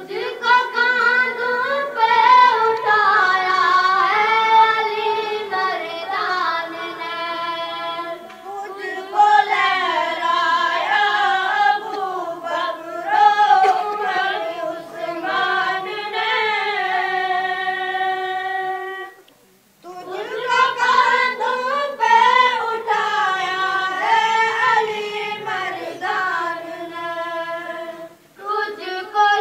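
A high voice singing an Urdu devotional anthem in long, wavering held notes, pausing briefly about two-thirds of the way through and again near the end.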